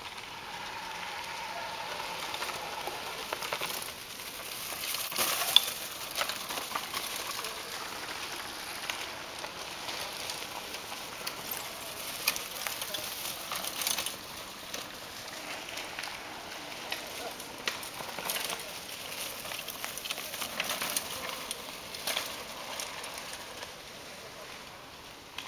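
Mountain bikes riding over dry fallen leaves on a dirt trail: a steady crackling hiss with scattered sharp clicks, loudest about five seconds in and again as a rider passes close by around twelve to fourteen seconds in.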